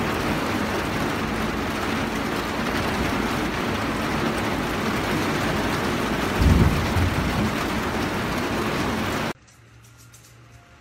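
Heavy rain pouring down steadily, with a brief low rumble about six and a half seconds in. The rain cuts off suddenly near the end.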